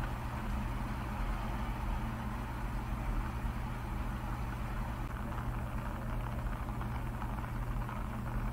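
Heavy rain pouring down in a steady, unbroken hiss, with a low steady hum underneath.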